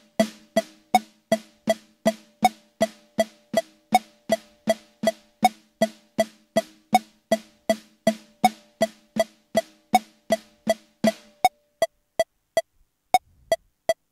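Metronome clicking steadily at 160 beats per minute, with soft tap strokes on an electronic drum kit's snare pad, alternating right and left hands in groups of eight. The drumming stops about eleven seconds in and the clicks carry on alone.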